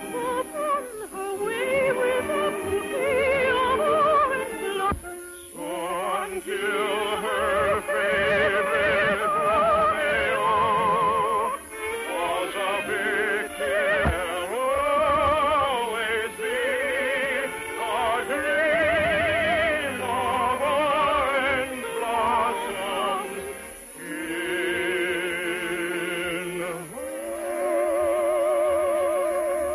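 Operatic singing with wide vibrato, in long phrases with held notes, with orchestral accompaniment.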